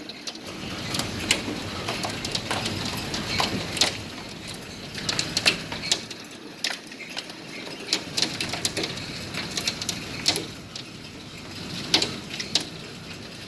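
Hailstones striking hard surfaces in a heavy hailstorm: irregular sharp clicks and knocks, several a second, over a steady rushing hiss.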